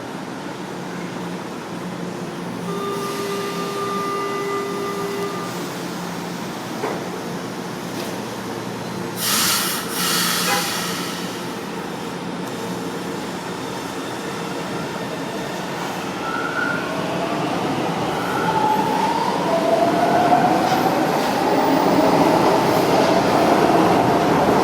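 São Paulo Metro Line 1 train at the platform. A short double hiss of air comes about nine to ten seconds in. Later the electric traction motors whine, rising in pitch as the train accelerates, and grow louder toward the end.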